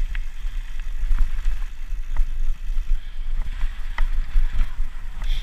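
Wind rumbling on the microphone of a camera mounted on a moving mountain bike, with tyre noise from the dirt trail and a few sharp clicks and rattles from the bike over rough ground.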